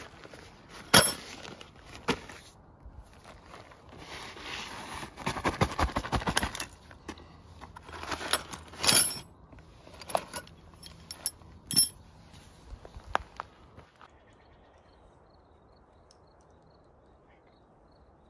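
Irregular clinks and knocks with a stretch of rustling, like things being handled, then much quieter from about two-thirds of the way in.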